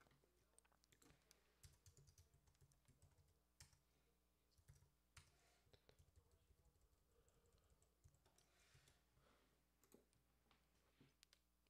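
Faint computer keyboard typing: irregular, quiet key clicks with short pauses between runs.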